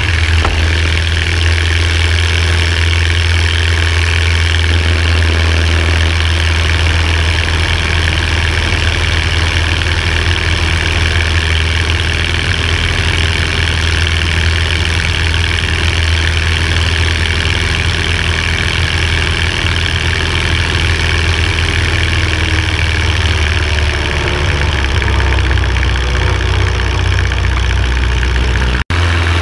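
Just Aircraft SuperSTOL's engine and propeller at takeoff and climb: a loud, steady low drone with wind noise rushing over the strut-mounted camera. The sound cuts out for an instant near the end.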